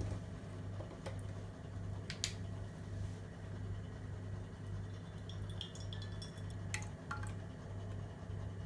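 A carton of thick soup is handled and poured into a stainless steel saucepan: a few sharp clicks as the carton and cap are worked, then the soup pours and splashes into the pot with small clinks against the metal. A steady low hum runs underneath.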